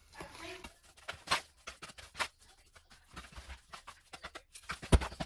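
Irregular light clicks, taps and rustling of things being handled, with one sharp knock about five seconds in.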